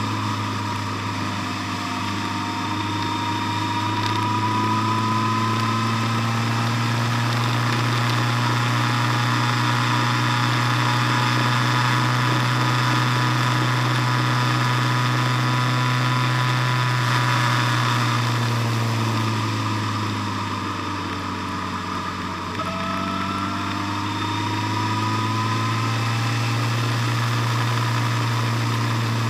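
Engine of a moving road vehicle, heard from on board, running steadily. Its pitch climbs over the first few seconds, sinks about two-thirds of the way through as it eases off, then climbs again after a brief dip in loudness.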